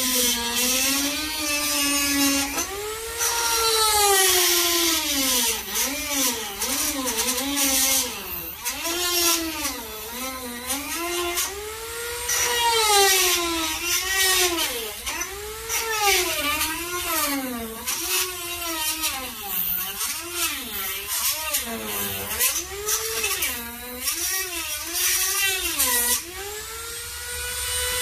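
A small high-speed power tool whining, its pitch continually dipping and rising as it works the bodywork, then running steady at a higher pitch near the end.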